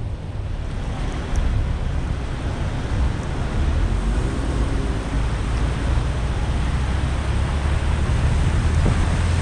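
Car driving on a rain-soaked road: a steady hiss of tyres on wet tarmac over a low rumble of the car.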